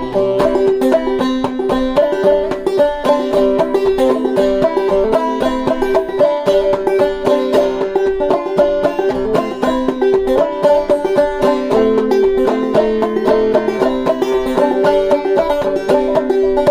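Five-string banjo played clawhammer style in double C tuning: a steady instrumental break of plucked notes and brushed chords, with no singing.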